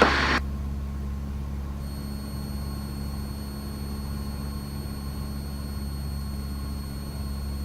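Cessna 172's piston engine droning steadily in cruise, heard inside the cabin, with a faint steady high tone coming in about two seconds in.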